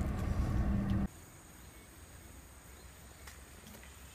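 A loud, steady rumble with a low hum inside a car cuts off abruptly about a second in. After that, insects keep up a faint, steady, high-pitched trill.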